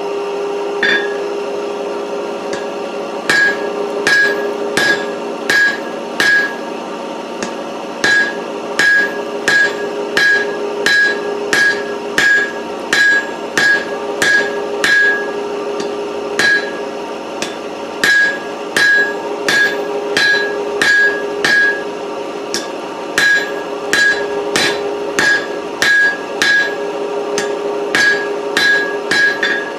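Hand hammer striking hot 4140 tool steel on an anvil, drawing out a square taper: evenly paced blows, about one and a half a second, each with a short metallic ring, in runs broken by brief pauses. A steady hum runs underneath.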